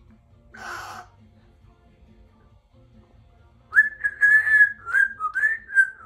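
Congo African grey parrot whistling: a run of wavering high whistled notes begins almost four seconds in, dipping briefly lower near the end, with a few clicks mixed in. A short breathy noise comes about half a second in.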